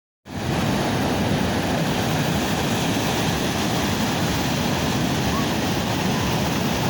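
Sea waves and surf washing steadily, an even roar that starts abruptly about a quarter second in.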